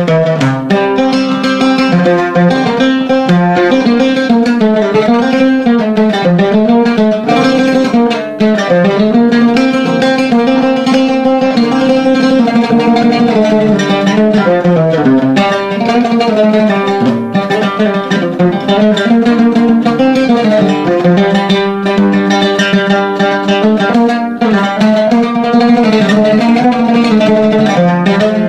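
Oud played solo with a plectrum: a continuous melody of fast repeated strokes with notes that slide in pitch along the fretless neck.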